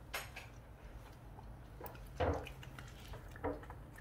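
Jindo dog eating a grilled fish off a plate: a few separate bites and mouth sounds, the loudest about halfway through.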